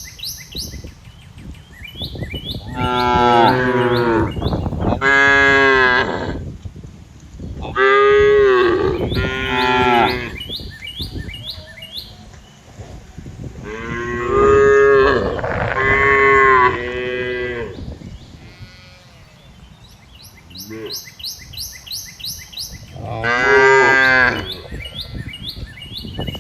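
Cattle mooing: a series of long, loud moos of a second or more each, a few seconds apart, with quieter gaps between them.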